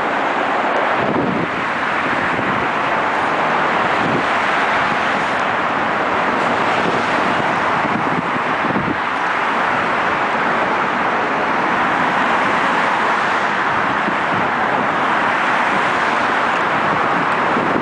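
Steady, loud rushing noise with no rhythm, breaks or clear tones.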